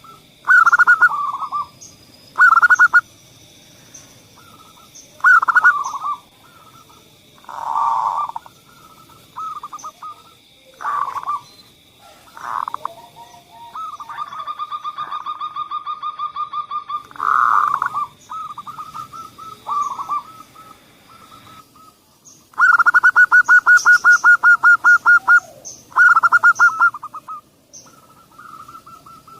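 Zebra doves (perkutut) cooing in repeated short staccato phrases, some drawn out into long fast trills. A steady high whine runs in the background and stops about two-thirds of the way through.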